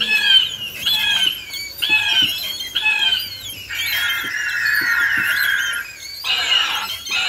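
Recorded pterosaur screeches played from a loudspeaker for an animatronic dinosaur: a shrill screech about once a second, then one longer, drawn-out screech, and a loud burst near the end.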